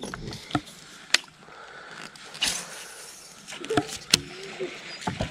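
A few sharp clicks and knocks from handling a baitcasting rod and reel in a small boat, over a faint hiss.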